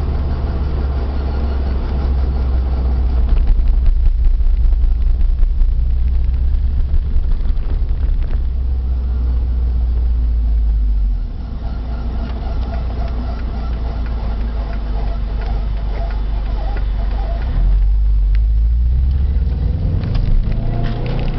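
Subaru Impreza GC8 driving with a steady low road and drivetrain rumble. Under it is the faint abnormal hum of a worn wheel hub bearing. The rumble eases slightly about halfway through.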